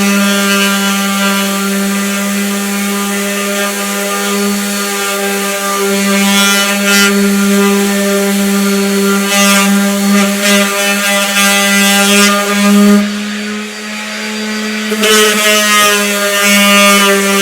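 Electric power tool motor running steadily with an even, pitched whine, easing briefly a few seconds before the end and then picking back up.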